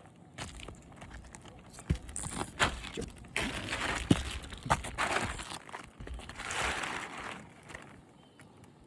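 Crinkling and scraping of roofing material being handled on a shingle roof, broken by a few sharp knocks, the loudest about four seconds in.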